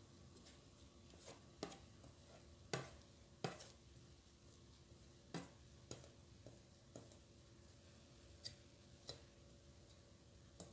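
About a dozen light knocks and taps of a stainless steel mixing bowl against a metal tray as a ball of dough is tipped out onto it, the two loudest about three seconds in. A faint steady hum lies underneath.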